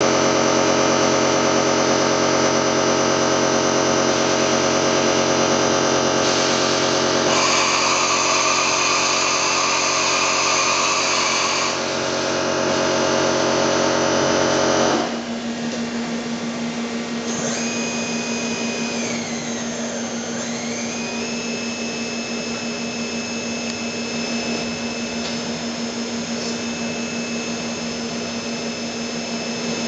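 Hardinge Bridgeport VMC650B vertical machining centre running, a steady electric machine whine made of several tones. Halfway through it drops suddenly to a quieter steady hum, and a few seconds later one whine dips in pitch and rises back again.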